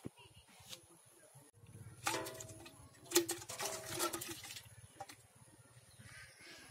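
Knocks and rustling as a small metal pail holding live climbing perch is handled and set down in dry leaf litter. The sharpest knock, with a brief metallic ring, comes about three seconds in.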